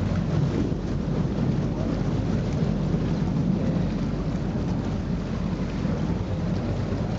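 Steady low rumble of a tour boat's engine under way, mixed with wind buffeting the microphone.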